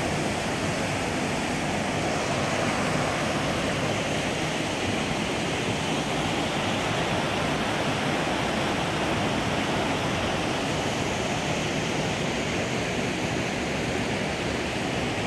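Rushing creek water pouring over rocks and small cascades in a rock canyon: a steady, unbroken rush of whitewater.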